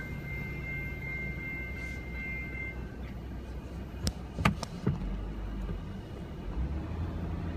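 Low steady rumble of a car idling, heard from inside the cabin while waiting at a level crossing. A high, steady ringing tone carries on for the first three seconds and then stops. Three sharp clicks follow about four to five seconds in, as the crossing gates start to lift.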